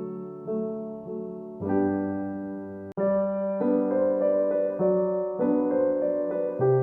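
Background piano music: a slow, gentle melody of held notes changing about every half second, with a brief break about three seconds in.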